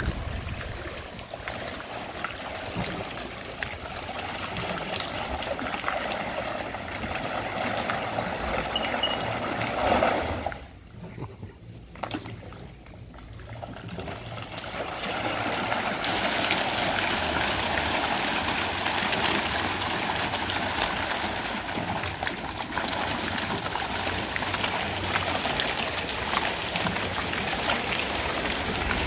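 Fish splashing and churning at the water's surface while they feed, a steady watery patter like a trickle. It drops away for a few seconds about a third of the way in, then returns louder and brighter.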